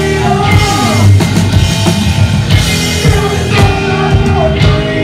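A rock band playing live: electric guitars, bass and drum kit, with a singer's voice over them.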